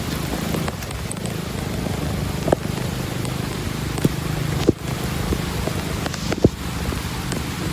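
Steady rushing noise of rain and floodwater, with wind on the microphone and several sharp knocks and clicks scattered through it.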